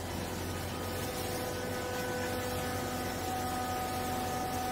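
Hydraulic power unit of a TCM vertical used-clothes baler running steadily as the press plate drives down to compress the clothes, a hum with a whine that shifts to a higher note a little past the middle.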